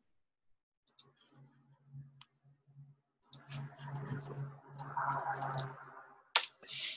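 Irregular clicks of a computer keyboard and mouse as a web link is copied and pasted into a chat, over a faint steady low hum.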